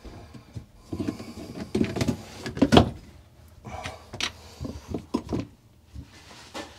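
Loose white plastic sink drain pipes and trap being wiggled and shifted by hand: irregular creaks, scrapes and knocks of plastic on plastic, the loudest about two and a half seconds in.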